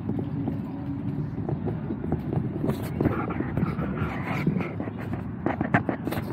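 A person walking on a paved sidewalk: footsteps and handling rumble on a handheld camera, with sharper clicks near the end.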